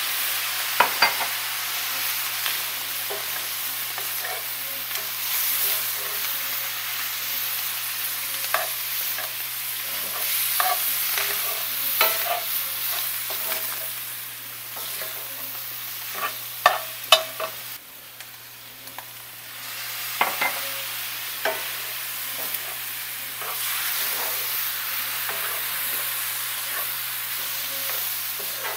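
Ground beef in taco seasoning and freshly added water sizzling in a cast-iron skillet, while a metal spoon stirs and scrapes through it, clicking against the pan now and then. The sizzle drops off for a couple of seconds about two-thirds of the way through, then picks back up.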